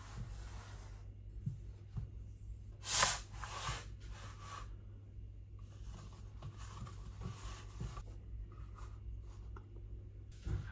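Hands sliding and stretching pizza dough on a stone countertop: soft rubbing and brushing sounds, the loudest a brief swish about three seconds in, over a steady low hum.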